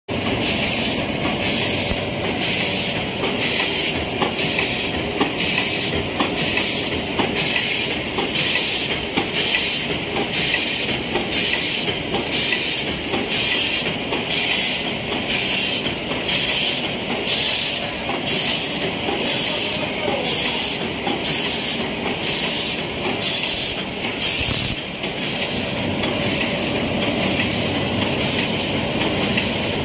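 Milk-candy production line machinery running: a steady mechanical clatter with a regular hiss pulsing about one and a half times a second, which turns into a steadier, even noise near the end.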